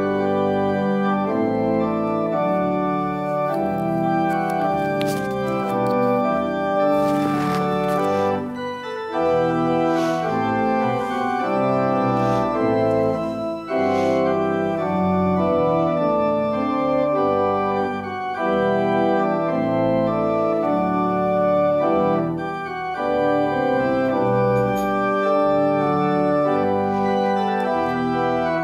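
Organ playing a postlude of sustained, changing chords that closes the worship service.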